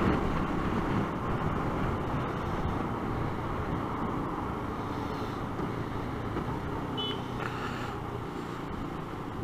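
Motorcycle engine and road noise heard from the rider's own camera, steady and slowly fading.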